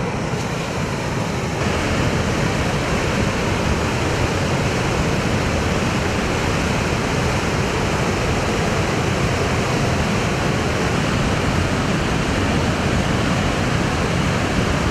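Lahar, a volcanic mudflow of ash-laden water and debris, rushing down a channel: a steady, loud rushing noise of churning water and mud that grows a little louder about a second and a half in.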